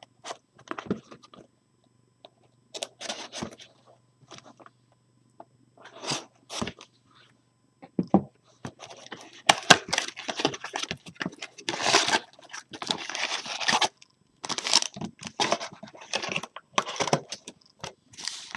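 Plastic shrink wrap on a cardboard trading-card box being slit with a knife and torn off. Scattered scrapes and rustles at first, then a dense run of crinkling and tearing from about halfway through, with cardboard handling and packs sliding out near the end.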